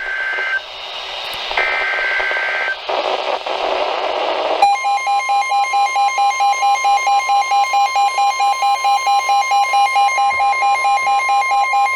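Emergency Alert System weather-radio alert: the end of the buzzy SAME data header bursts, then, about five seconds in, the attention signal, a long steady alert tone with a rapid beeping of about four pulses a second over it. It announces a severe thunderstorm warning.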